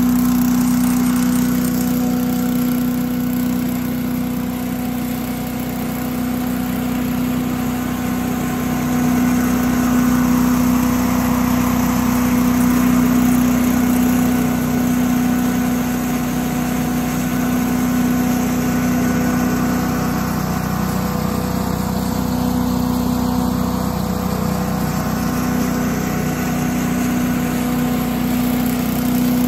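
Kubota compact tractor running with an 8 hp Little Wonder leaf blower mounted on its rear three-point hitch, the blower's engine and fan running steadily as it blows leaves across the lawn. A steady engine drone with a strong hum, dipping slightly in loudness a few seconds in.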